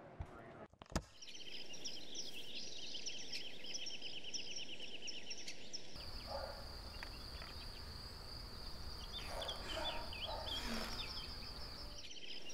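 Outdoor country ambience: rapid, rhythmic chirping of insects and birds over a soft hiss. About six seconds in, it changes suddenly to a steady high-pitched insect drone over a low rumble, with a few scattered bird calls. Two short clicks come just before the ambience starts.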